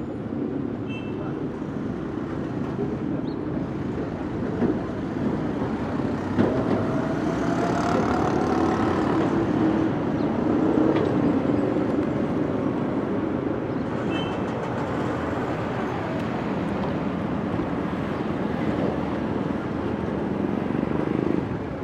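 City street ambience: steady traffic noise, with a vehicle passing that swells and fades over several seconds near the middle, and a couple of short knocks.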